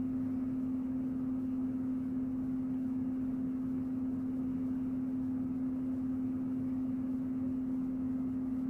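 A steady hum at one constant pitch, with a faint even hiss underneath.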